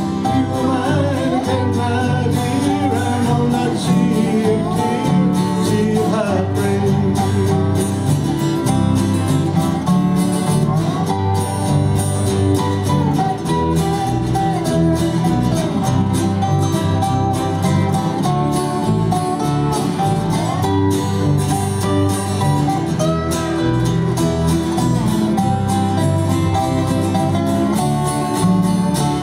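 Live country band playing an instrumental break on electric bass, acoustic and electric guitars and keyboard, with a steady beat.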